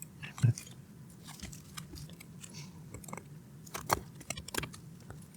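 Scattered small clicks and crunchy ticks of a hand tool and fingers working against the metal X-clamp and plastic inside an Xbox console, with a few louder clicks near the end.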